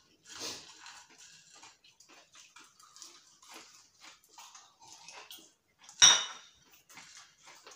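Eating at speed from ceramic plates: fingers scraping and picking fried potato fries off the plates, with small clicks and mouth noises. About six seconds in, a glass is set down on its saucer with one sharp clink that rings briefly.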